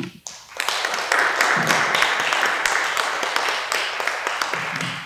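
An audience applauding. The clapping swells about half a second in, holds steady, and starts to fade near the end.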